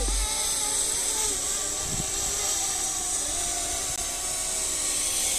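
Quadcopter drone's propellers whirring steadily as it hovers and flies nearby, a high-pitched whine with several wavering tones.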